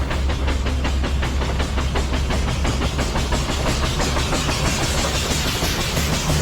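An engine running steadily, with a deep hum under a rapid, even beat.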